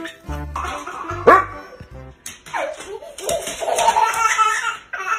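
A dog barking over background music. The music with its bass beat stops about two seconds in.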